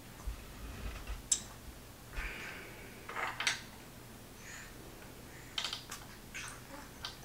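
Light clicks, taps and rustling as pieces of a white wooden crib are handled and fitted together during assembly, with a few soft thumps in the first couple of seconds.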